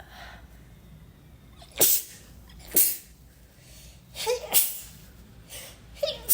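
A woman sneezing several times in quick succession, some of the sneezes coming in close pairs.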